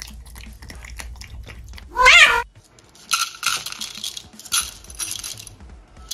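A cat meows once, loudly, about two seconds in. Then dry kibble pours from a small bowl into clear plastic cat bowls, rattling for a couple of seconds.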